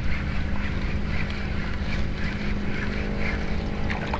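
A boat engine running steadily, a low even drone.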